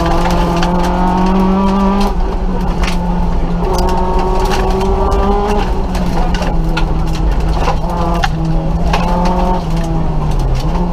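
Nissan Micra rally car at speed, heard from inside the cabin: the engine holds high revs, with its note dipping briefly about two, five and a half and ten seconds in. Sharp clicks and knocks from the car's body and underside run throughout.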